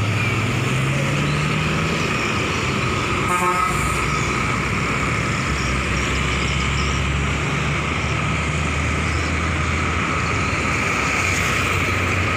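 Highway traffic passing close by: motorcycles, cars and trucks running past, one engine revving up over the first two seconds. A short horn toot about three seconds in.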